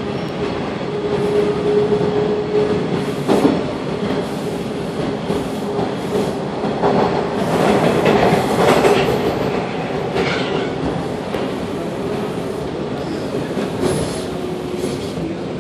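TTC Bombardier T1 subway train heard from inside the car while running: a steady rumble of steel wheels on the rails. A steady tone over the first three seconds fades away, there is a sharp clack from the track a little after, and the noise grows louder for a couple of seconds in the middle.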